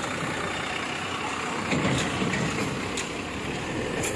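Army truck driving past close by, its engine running, growing louder a little under two seconds in.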